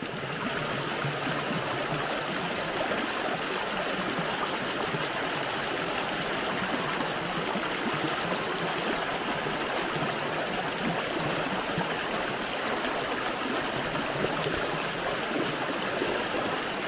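A small stream flowing over a shallow bed: a steady, even rush and babble of water that fades in at the start.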